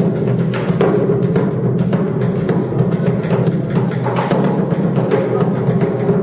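Two large percussive sculptures played with mallets and stick bundles: a fast, continuous stream of drum-like strikes over a steady low hum.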